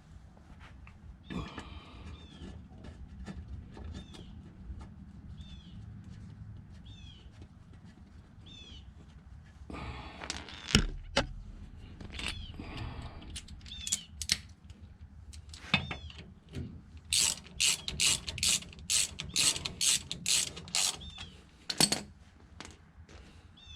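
Hand ratchet clicking in bursts while running in differential cover bolts, most busily about two-thirds of the way in. A faint short chirp repeats about once a second throughout.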